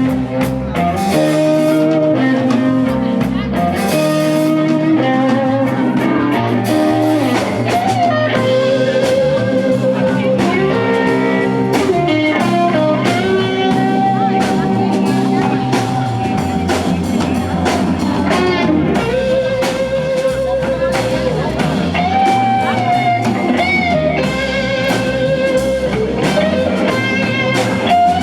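Live band playing blues-rock, led by a guitar with long, wavering held notes over bass and a drum kit.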